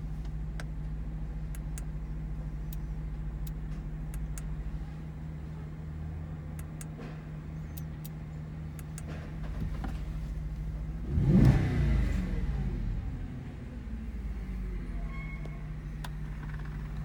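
Audi RS4's 4.2-litre V8 idling steadily, blipped once in a quick rev about eleven seconds in, the revs falling back to idle over a couple of seconds.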